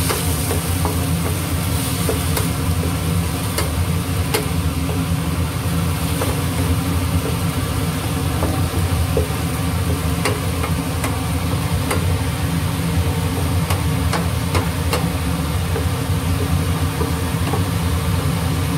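Kitchen exhaust fan running with a steady, loud low hum. A wooden spatula clicks and scrapes against a nonstick frying pan now and then.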